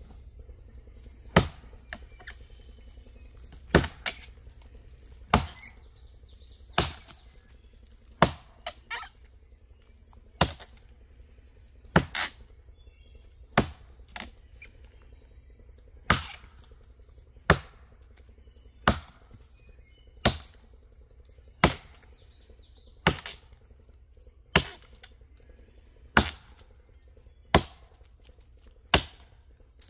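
Vintage Craftsman axe chopping a face cut into a standing cherry tree: sharp blade strikes into the wood, about one every one and a half seconds, some with a quick second knock.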